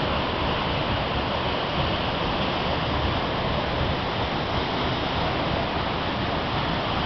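Waterfall rushing over rock cascades in full rainy-season flow: a steady, unbroken wash of water noise.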